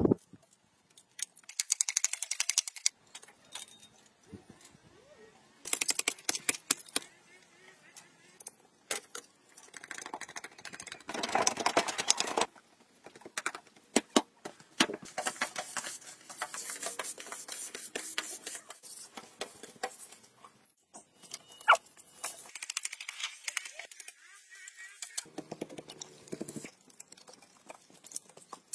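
Manual building work in short bursts with quiet gaps: sharp clicks and knocks of bamboo poles being handled and fitted, and stretches of scraping and rubbing as earth and mud are worked by hand.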